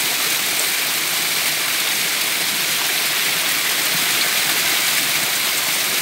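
Small waterfall splashing steadily down a face of layered rock: an even, hissing rush of falling water.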